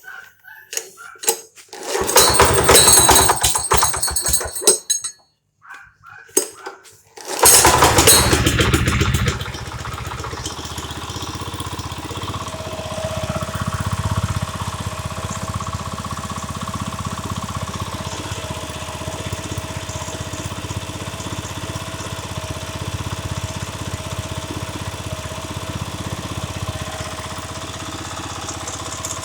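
Robin petrol engine on a walk-behind concrete saw being started. It runs loud for about three seconds and stops. It is started again about seven seconds in, runs loud for two seconds, then settles to a steady idle.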